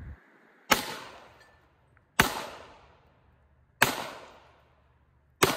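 Four single gunshots, about a second and a half apart, each a sharp crack followed by a fading echo.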